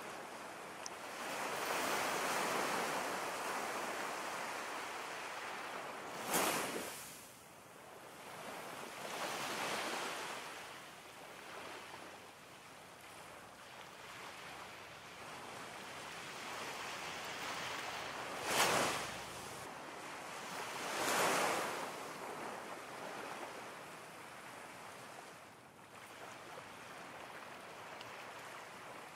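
Ocean waves washing in: a continuous rushing that swells and falls every few seconds, with sharper surges about six and nineteen seconds in.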